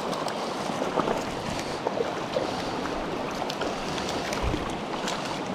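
Mountain stream water rushing steadily, with a few faint short clicks or splashes scattered through it.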